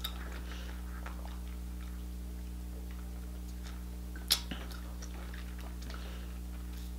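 Quiet mouth sounds of sipping water through a straw, over a steady low hum, with one sharp click about four seconds in.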